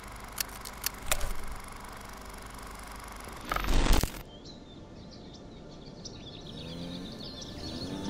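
Layered intro sound effects: a steady hiss with a few sharp clicks, then a rushing swell that cuts off suddenly about halfway through. Birds chirping follow, and a cow begins to moo near the end.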